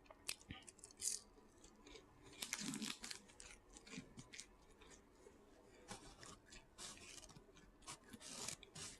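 A person chewing and crunching food close to the microphone, with scattered short mouth clicks and smacks and a louder crunchy burst about two and a half seconds in.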